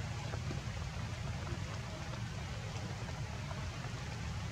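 Steady outdoor background noise: a constant low rumble with an even hiss above it, and no distinct animal calls.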